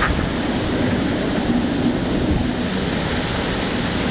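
Typhoon wind: a steady rushing noise with gusts buffeting the microphone.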